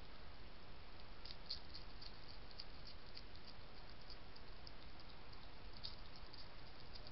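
A European hedgehog crunching dry kitten biscuits from a bowl: a run of quick, sharp crunches, several a second, starting about a second in, over a steady background hiss.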